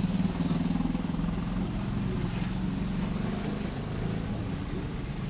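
Car engine running with a steady low hum and road noise, heard from inside the cabin while driving through a flooded street.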